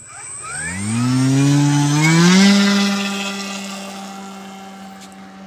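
Electric three-phase motor of a large radio-controlled model plane spinning up its 18-inch propeller: a whine that rises in pitch for about two seconds, then holds steady at full throttle. It grows fainter as the plane rolls away down the strip on its takeoff run.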